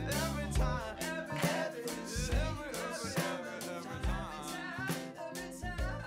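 Background music: a song with a sung melody over guitar, bass and a steady drum beat.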